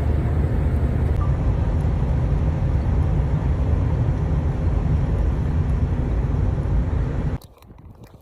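Steady low rumble of a vehicle driving on the road, heard from inside, cutting off abruptly near the end.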